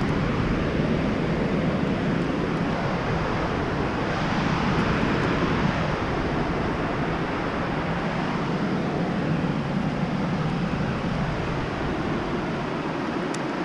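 Steady rushing wind noise buffeting a camera microphone on an exposed rock face, with no distinct events beyond a couple of faint ticks near the end.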